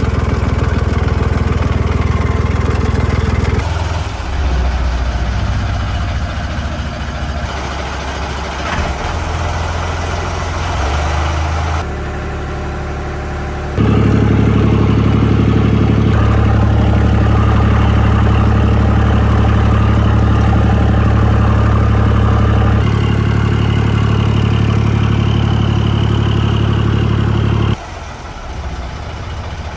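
A boat's inboard engine running steadily at idle, driving a stern drive, with cooling water spraying out beside the drive into the water. The hum changes level abruptly a few times, loudest in the middle and dropping near the end.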